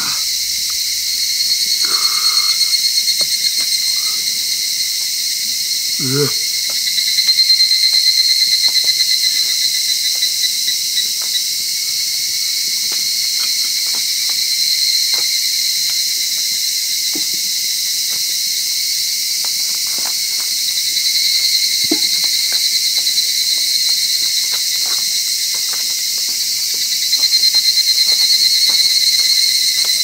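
A loud, continuous chorus of insects shrilling at two high pitches, swelling and easing in waves about every six seconds, with a few faint knocks.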